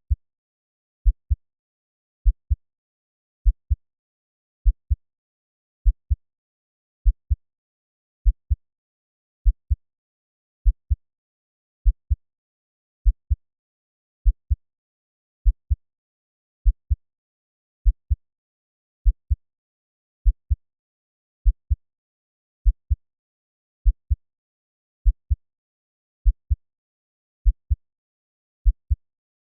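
Slow heartbeat sound at 50 beats per minute: deep lub-dub double thumps repeating evenly about every 1.2 seconds, with silence between beats.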